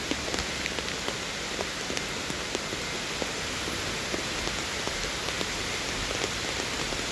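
Steady rain falling, with many separate drops ticking on a nearby surface.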